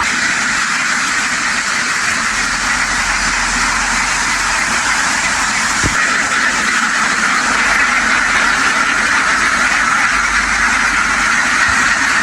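A very large flock of ducks quacking all at once, merging into one steady, continuous din.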